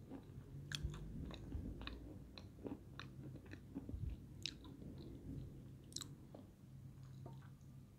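Close-up chewing of dry edible clay (peschanka), with irregular small crunches and clicks, the sharpest about four and a half and six seconds in.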